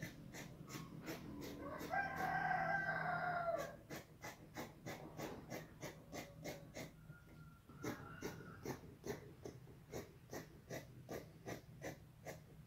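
Fabric scissors snipping through lace and satin in a rapid run of sharp snips, about three a second. A rooster crows once for a couple of seconds near the start, louder than the snipping.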